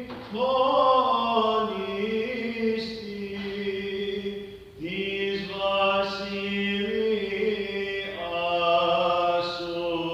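Orthodox Vespers chant: unaccompanied voices singing phrases of long held notes, with a brief pause between phrases about halfway through.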